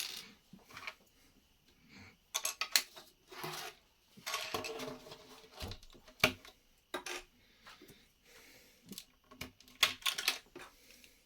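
Plastic Lego pieces being handled and pressed together: irregular clicks and short rattles of hard plastic, some louder snaps among them.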